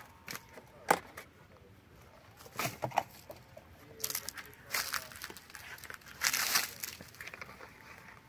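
Irregular rustling and crinkling handling noise with sharp clicks, one sharp click about a second in and longer rustling bursts around four and six seconds in.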